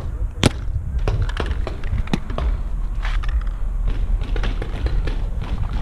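Paintball markers firing during a game: an irregular string of sharp pops and smacks, the loudest about half a second in, over a steady low rumble.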